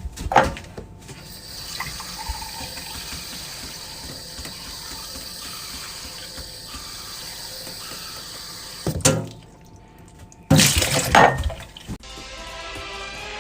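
Steady rushing hiss like water running from a tap, broken by two short loud bursts about nine and eleven seconds in. Music comes in near the end.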